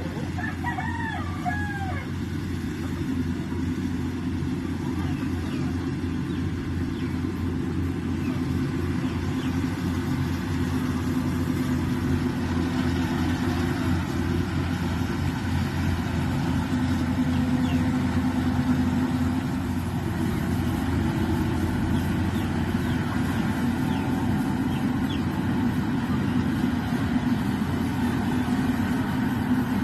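Engine running steadily at a constant speed, a low hum that grows a little louder partway through.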